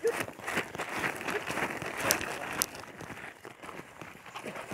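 Footsteps crunching and rustling through dry leaf litter: an irregular crackling patter, with two sharper snaps about halfway through.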